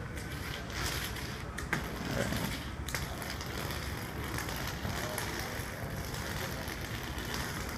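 Handling noise from a phone held against clothing while walking: rustling with a few small bumps and clicks. Behind it is a steady rushing noise, rain and wind on an open ship deck.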